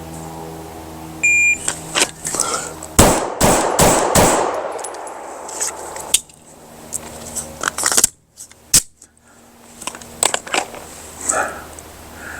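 A shot timer beeps once, and about two seconds later a pistol fires four rapid shots. A few lighter clicks and knocks follow.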